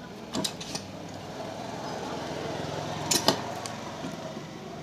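Cast cylinder block being rocked side to side and pushed down over the piston and rings onto a Hero Passion Pro engine's crankcase: a few light metal clicks and knocks, a pair about half a second in and a cluster a little after three seconds, with faint scraping between.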